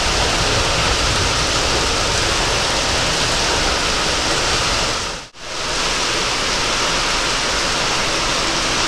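Heavy rain pouring onto a station platform and its roof, a steady rushing hiss, with the low rumble of a DEMU train rolling slowly past. About five seconds in, the sound drops out for a moment and comes back as rain alone with less rumble.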